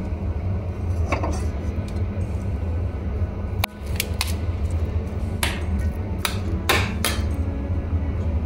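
Spoon stirring and scraping spiced mashed-potato samosa filling in a steel plate, knocking against the metal in a series of sharp clinks, over a steady low hum.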